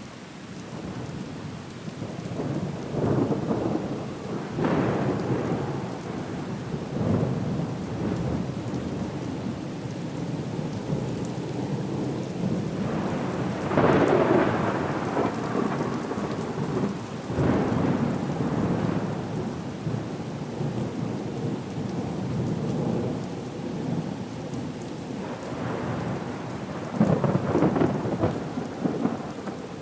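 Storm ambience: steady heavy rain with rolling thunder, the rumbles swelling several times, loudest about halfway through and again near the end.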